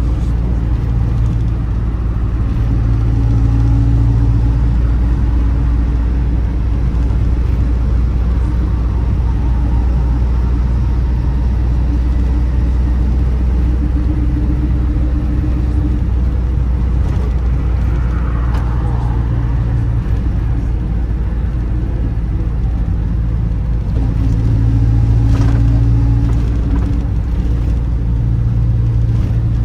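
Cabin noise of a vehicle travelling at highway speed: a steady low road and engine rumble, with an engine hum that swells and fades a few times.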